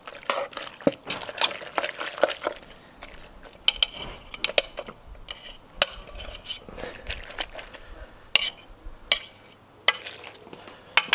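Metal utensil stirring tagliatelle in a creamy sauce in a stainless steel pot, with repeated sharp clinks and scrapes of metal against the pot's sides, and clacks of the pot's folding metal handle.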